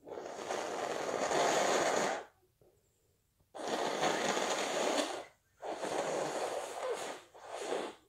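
A person with a stuffy cold blowing their nose hard into a tissue: three long blows with short pauses between them, the last one breaking briefly just before it ends.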